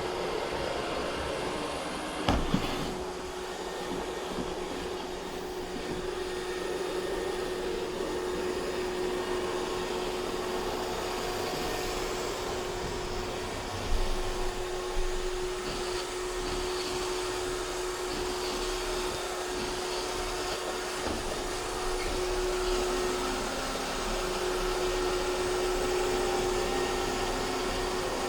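iRobot Roomba 630 robot vacuum running steadily, its brushes and suction motor giving a constant whirr with a steady hum. A sharp knock about two seconds in and a couple more around the middle.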